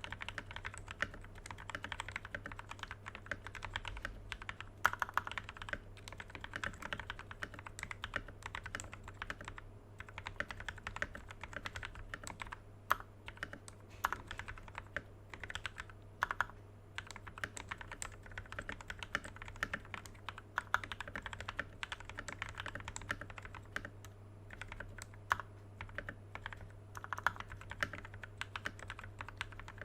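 Typing on a Tecware Phantom Elite TKL mechanical keyboard after modding, with Kailh Speed Silver linear switches lubed with Krytox 205g0, plate-mounted stabilizers and OEM stock keycaps. It makes a fast, uneven run of keystroke clacks, with some strokes louder than the rest.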